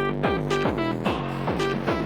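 Electronic background music with a steady beat of about four sharp, pitched notes a second.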